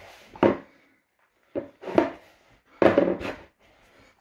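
Hands pressing and squeezing shortcrust pastry dough in a mixing bowl: several short dull thumps and scuffs with quiet gaps between.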